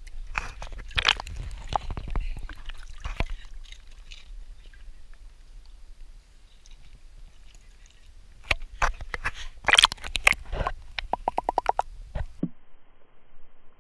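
A husky splashing and stepping about in a shallow paddling pool: water sloshing, with sharp knocks and splashes against the camera's waterproof housing, in two bouts. About three-quarters of the way through, the sound turns dull and muffled as the camera goes under the water.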